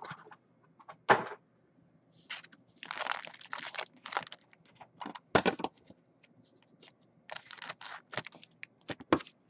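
A foil-wrapped trading card pack being handled and its wrapper cut open with scissors: crinkling and rustling, broken by several sharp clicks, the loudest about a second in, midway, and twice near the end.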